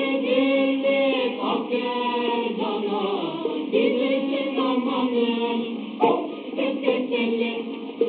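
Mixed choir of men's and women's voices singing a Turkish folk song (türkü), on an old recording with a thin, muffled sound. A single click about six seconds in.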